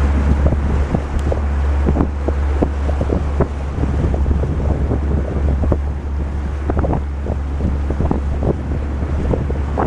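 A boat moving on the river, with a steady low motor drone under heavy wind buffeting on the microphone and irregular thumps and splashes.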